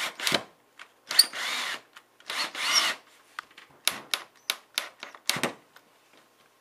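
Power drill driving screws into wood in three short bursts, its motor pitch rising and falling, setting a handrail bracket into a wooden board; then a run of sharp clicks and knocks.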